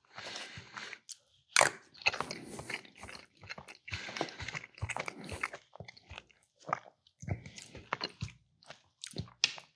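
A person chewing and biting food close to the microphone: irregular wet mouth smacks and clicks, with a few sharper clicks.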